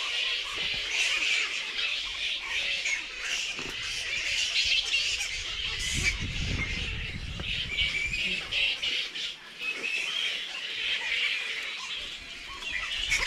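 A roosting colony of flying foxes calling and chattering constantly, with many overlapping calls at once.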